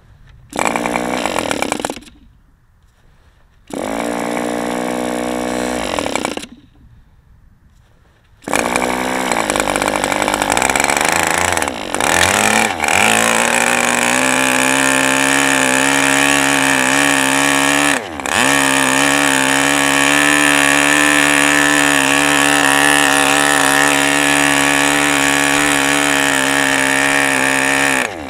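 A glow-fuel model-aircraft engine is spun over twice by a hand-held electric starter, then catches about eight seconds in, rises in pitch over a few seconds and settles into a steady high-rpm run on a genuine OS #8 glow plug, dipping briefly a couple of times.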